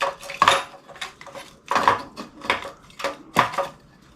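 Hand tools and metal parts clinking and clanking irregularly, about eight sharp knocks, as parts are worked loose during an ATC engine removal.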